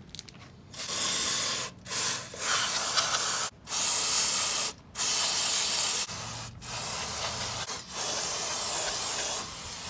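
Aerosol parts cleaner sprayed through its straw nozzle onto a VW Type 1 oil strainer screen and cover, in a string of hissing bursts of about a second each with short gaps between them, washing off old engine oil.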